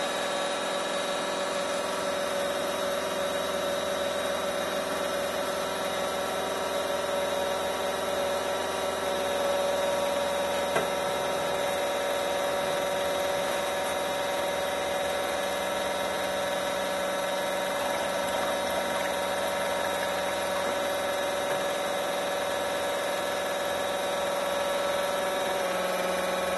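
Fuelab 42402 electric fuel pump running steadily on a test stand, with a constant whine held by the 529-series electronic regulator at just the speed needed for its target pressure, so little fuel is returned. A light tap comes about eleven seconds in, and the pitch shifts slightly near the end.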